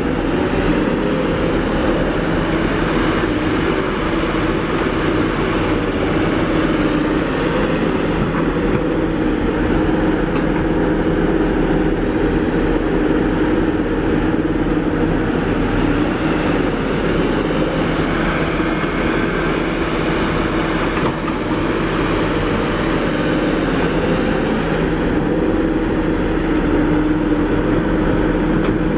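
Kobelco SK350 hydraulic excavator's diesel engine running steadily at working revs.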